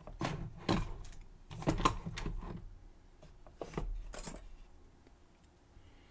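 Small metal parts of a sidebar padlock clicking and rattling as the lock is taken apart by hand, in three short bursts over the first four seconds or so.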